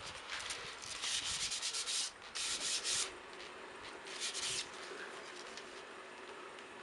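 Hand rubbing strokes on a Tassie Oak axe handle, coming in three quick bursts of hissing strokes in the first half, then a faint steady background.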